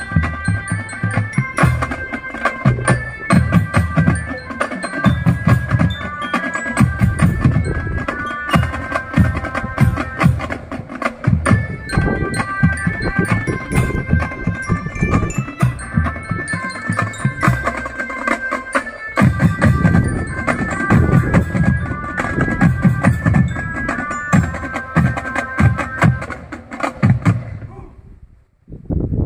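Marching drum band without brass playing: drums beating a driving rhythm under a melody on mallet bells. The music stops near the end.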